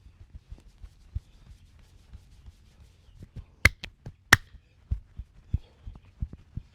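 Hands working a head and back massage: a run of soft, irregular pats and rubs, two or three a second, with two loud sharp clicks a little past the middle.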